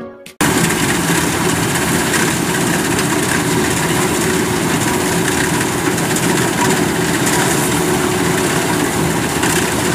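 Kubota DC93 combine harvester running steadily as it cuts flattened, waterlogged rice. The machine sound starts abruptly just under half a second in.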